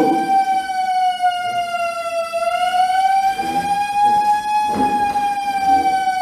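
Fire alarm sounding: one loud, continuous electronic wail with strong overtones. It holds nearly steady in pitch, sagging slightly about two seconds in and rising back.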